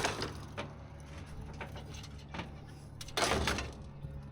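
Vehicle engine idling steadily, with a few light knocks and a short rush of noise about three seconds in.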